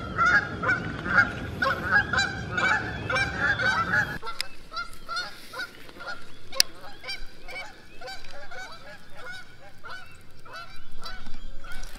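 Geese honking over and over, several quick calls a second. A low rumble under the first four seconds stops abruptly, leaving the honking fainter, and there is one sharp click about six and a half seconds in.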